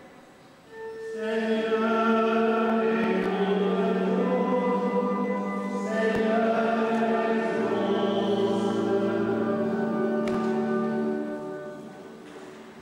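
Voices singing a short liturgical refrain in a church, in two phrases of long held notes that start about a second in and fade out near the end.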